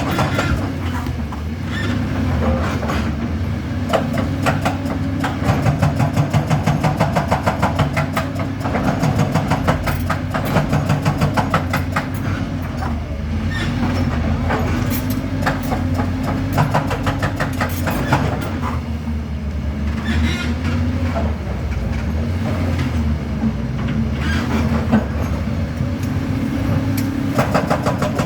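Doosan DX225 excavator's diesel engine running under load, its pitch rising and falling slightly as it works, with a dense, rapid metallic clatter over it.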